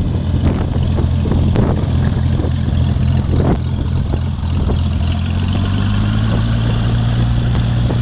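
Cessna 182's piston engine and propeller running at low taxi power as the plane passes close by, a steady low hum of even tones.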